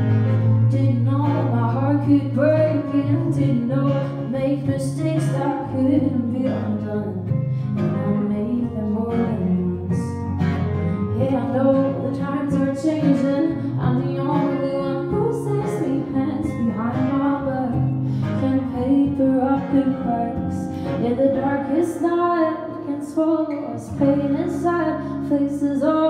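A woman singing live with acoustic guitar and electric guitar accompaniment.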